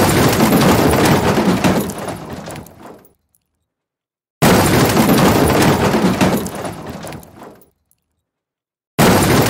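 Car crash sound effect played three times: each begins with a sudden crash, then crunching and breaking glass that die away over about three seconds, followed by complete silence. The first starts at once, the second about four and a half seconds in, and the third near the end.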